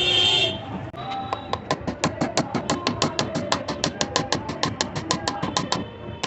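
Background music with a quick steady beat, after a short buzzing tone at the start.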